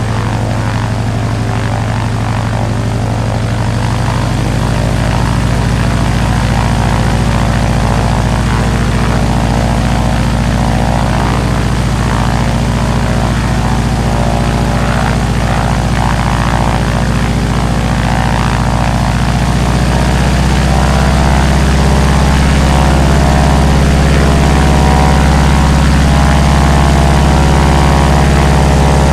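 Max Holste Broussard's Pratt & Whitney R-985 radial engine and propeller idling steadily on the ground. The engine note steps up slightly twice, about four seconds in and again about twenty seconds in.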